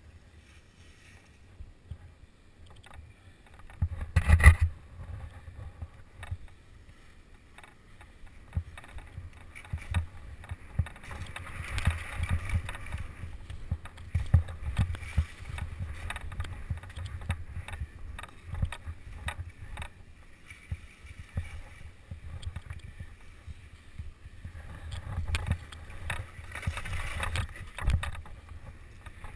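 Skis sliding and turning through snow, picked up by a helmet-mounted camera: a rough hiss of snow that swells and fades with the turns, over a low rumble of wind and movement on the microphone. A single loud knock about four seconds in, before the run gets going.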